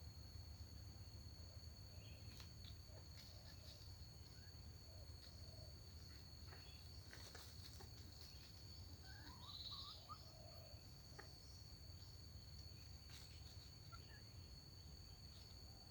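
Faint rural ambience: a steady high insect drone from crickets or cicadas, with scattered faint clicks and a few brief bird calls a little past halfway.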